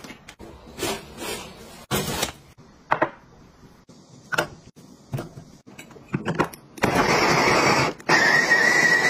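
Electric mini food chopper with a glass bowl running in two pulses a moment apart, its blade grinding pork and green vegetables, with a steady whine in the second pulse. Light taps and knocks of things being handled come before it.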